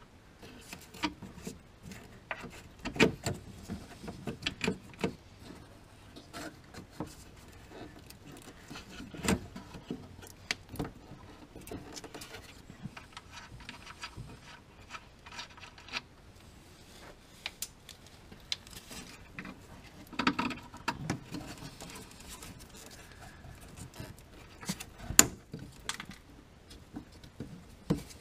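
Irregular small clicks, taps and rattles of hands working a plastic quick-disconnect tool onto a steel fuel line fitting at the fuel filter, with a few louder knocks.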